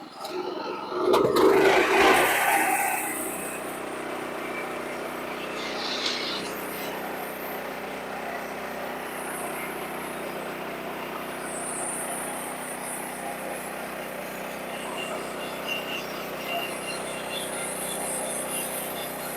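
Sawmill machinery starting up with a loud burst about a second in, then running steadily.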